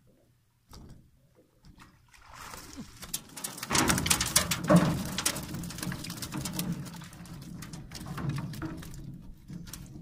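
Wire-mesh fish trap rattling and knocking against the side of a boat as it is hauled aboard and emptied, with fish slapping and flapping in the hull. Irregular clatter that builds from about two seconds in, is loudest around the middle, and eases off near the end.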